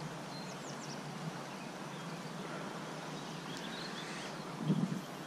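Steady rush of a shallow stream flowing over riffles, with a few faint bird chirps. A short low bump sounds near the end.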